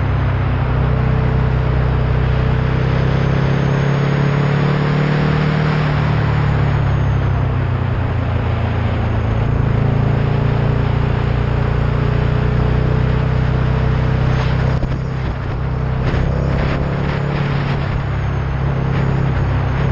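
Vehicle engine running at a steady cruise with road and wind noise. The engine note drifts slowly up and down in pitch, and there is a brief dip in loudness about fifteen seconds in.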